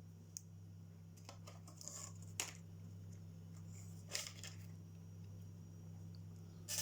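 Small sharp clicks and brief scraping of watchmaker's tools and parts being handled on a wristwatch at the bench, a few separate ticks and taps over a steady low hum.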